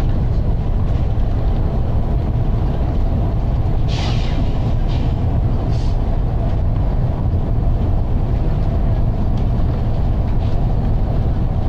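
Volvo B9TL double-decker bus on the move, heard from inside on the upper deck: a steady low drone of engine and road noise, with a short hiss of compressed air about four seconds in and two fainter hisses soon after.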